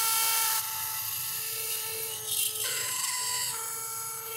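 High-speed surgical drill running through a robotic guide tube, boring a pilot hole into a thoracic pedicle. It gives a steady whine whose pitch shifts slightly about halfway through.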